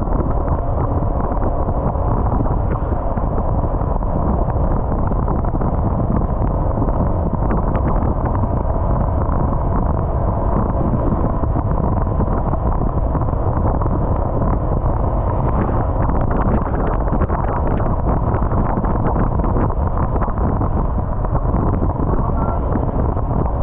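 Steady wind buffeting the microphone on a moving motorbike, with the engine running underneath.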